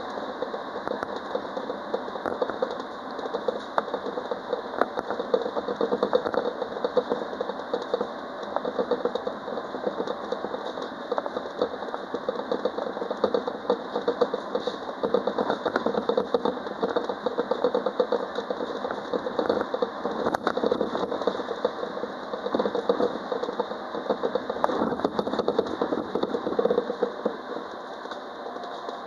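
Citadis Dualis tram-train running along the line, heard from the cab: steady running noise with many small clicks and rattles. It eases off a little near the end.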